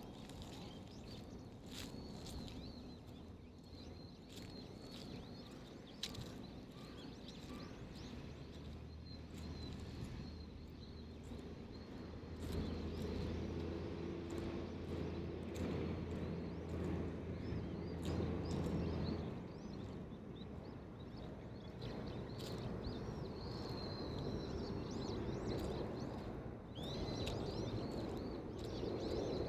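Small birds chirping on and off, with scattered soft clicks, and a low steady hum for about ten seconds in the middle.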